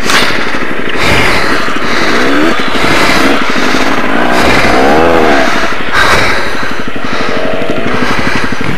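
Motorcycle engine running under a rider, its revs rising and falling three times as the throttle is opened and closed, over a steady rushing noise.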